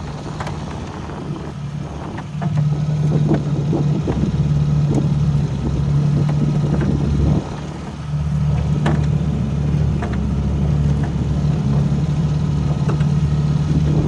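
Outboard motor running steadily, a low hum that gets louder about two seconds in and dips briefly near the middle before picking up again. Scattered light clicks from a gill net being paid out over the side of an aluminium boat.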